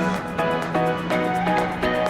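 Background music: a melody of short notes over a held low tone, with a steady beat.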